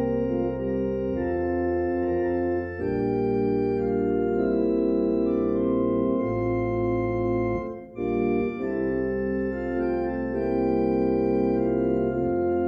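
Organ playing sustained chords over held low bass notes, changing chord every few seconds, with a short break about eight seconds in.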